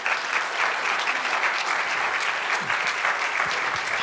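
Audience applauding steadily at the end of a talk, a dense patter of many hands clapping.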